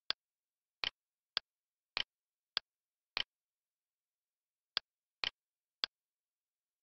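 Computer mouse button clicking: nine short, sharp clicks at roughly half-second spacing, several heard as a quick press-and-release pair, with a pause of about a second and a half after the sixth click.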